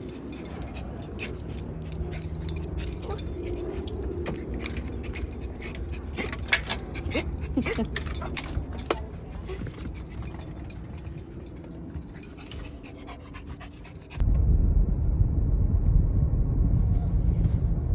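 A dog moving about and panting, with metal tags or keys jingling and clicking. About 14 seconds in, this cuts abruptly to a loud, steady low rumble.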